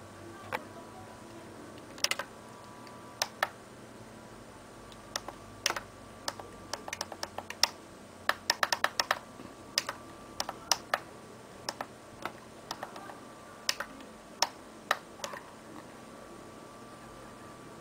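Plastic button clicks from a computer monitor's front-panel buttons being pressed to adjust its brightness: single presses at irregular spacing, with a quick run of presses about eight to nine seconds in.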